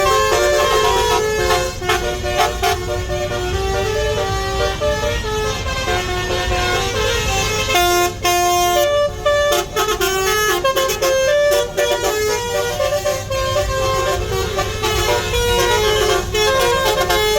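Multi-tone telolet horns playing a rapid tune of short held notes that keep changing pitch, over a steady low rumble.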